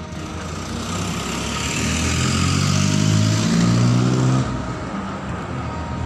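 A motor vehicle's engine running close by, with a hiss of road noise. It grows louder over a few seconds, then cuts off suddenly about four and a half seconds in.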